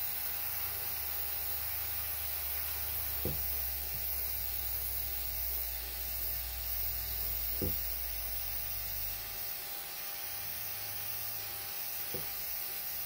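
Small airbrush compressor motor humming, with a steady hiss of air through the airbrush. The hum stops about two-thirds of the way through while the hiss goes on. A few faint taps.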